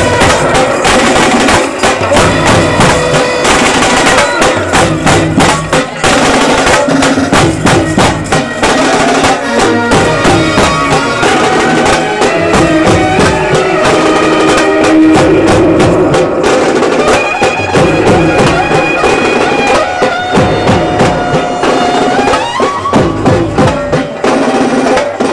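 Indian street brass band playing: bass and side drums beating a fast, steady rhythm under trumpets carrying a loud melody of held notes.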